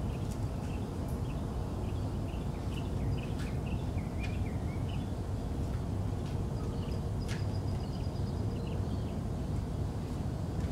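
Outdoor ambience: a steady low rumble with small birds chirping on and off.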